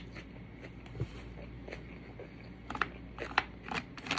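Close-up chewing of crunchy Caesar salad: crisp crunches and small mouth clicks, sparse at first, then quicker and louder in the second half.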